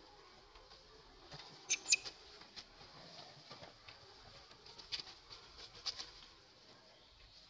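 Infant macaque giving short, high-pitched squeaks: two close together about two seconds in, then fainter ones about three and four seconds later.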